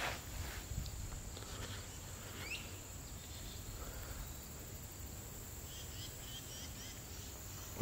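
Steady high-pitched insect chorus of crickets from the surrounding woods, with a walker's footsteps on asphalt mostly in the first second and a few faint bird chirps about two and a half seconds in and near the end.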